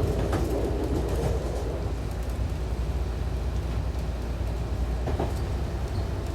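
Diesel railcar heard from the driver's cabin while running along the track: a steady low engine and running rumble with wheel and track noise, and an occasional faint knock from the rails.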